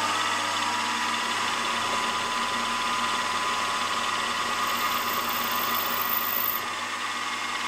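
Milling machine spindle running at a steady speed while a centre drill cuts into a metal connecting-rod blank, the first step before the big-end hole is drilled and reamed. A steady machine whine runs over an even cutting hiss.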